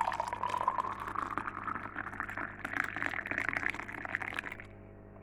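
Boiling water poured into a cup. The pitch of the pour rises steadily as the cup fills, and the pour stops about four and a half seconds in.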